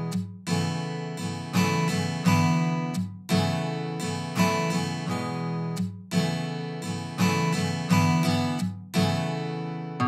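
Background music: an acoustic guitar strumming chords, each chord struck and left to ring out, about one to two a second.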